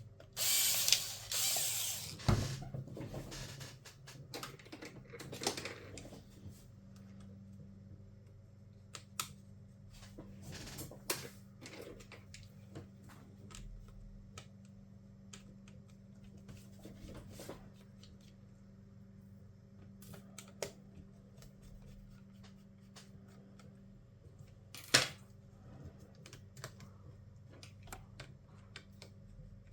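Small clicks, taps and scrapes of hand tools and plastic and metal laptop parts being handled, with a loud rubbing scrape in the first two seconds, a sharp knock just after, and another sharp click near the end. A faint steady low hum runs underneath.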